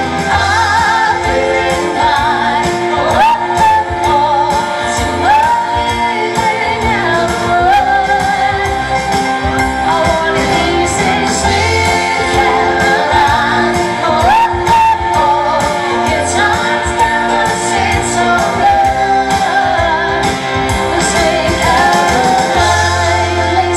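Live pop band playing: a woman and a man singing into microphones over electric guitar, keyboards and a steady beat.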